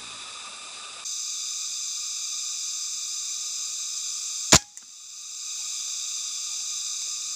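A single air rifle shot about four and a half seconds in: one sharp crack, then a faint click. A steady high hiss runs under it.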